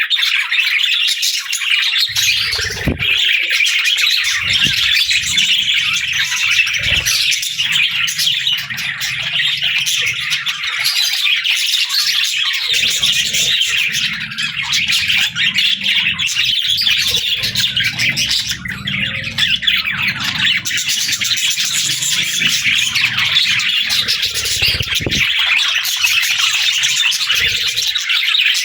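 A flock of budgerigars chirping and chattering without a break, with a low rumble coming and going underneath.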